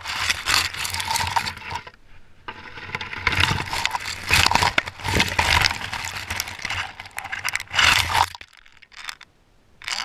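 Branches of a dense bush scraping and crackling against a helmet camera as the rider thrashes through the brush. The scraping breaks off briefly about two seconds in and stops a little after eight seconds, with a couple of short brushes near the end.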